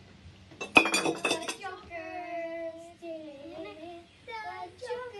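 Child singing in long held notes that step up and down. About a second in comes a sudden, loud burst.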